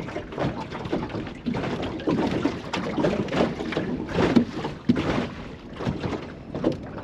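Strong, gusty wind buffeting the microphone in a small open boat, with water lapping at the hull.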